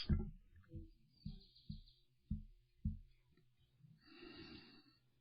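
A string of soft, low thumps, about six in the first three seconds, then a faint brief rustle.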